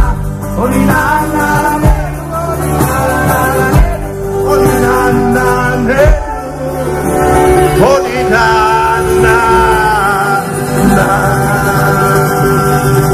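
Folk band music played live: a small button accordion with acoustic guitar and bass guitar, in southern Italian folk style, with a man singing at times.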